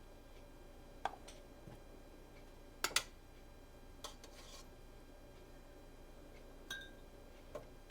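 Utensils and dishes knocking and clinking lightly as soup is dished out: a few scattered sharp clicks, the loudest a quick double knock about three seconds in.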